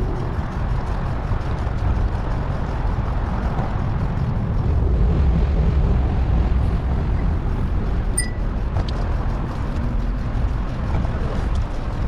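Steady low rumble of wind buffeting the microphone, with road noise, during a bicycle ride. A brief high chirp sounds about eight seconds in.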